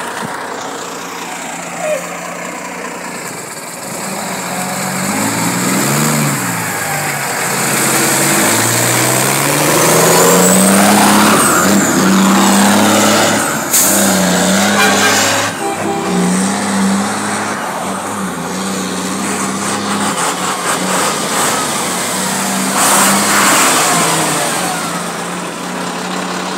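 Heavy diesel tipper truck engine accelerating hard, its pitch climbing and dropping several times as it works up through the gears, with a faint rising whistle. A short burst of hiss comes about fourteen seconds in, then the engine settles to a steadier pull as the truck moves off.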